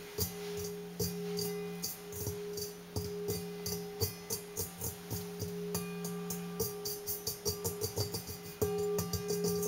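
Fingers tapping and drumming on a KitchenAid stand mixer's stainless steel bowl, the bowl ringing on with steady tones under the taps. The taps come faster in the second half and grow louder near the end.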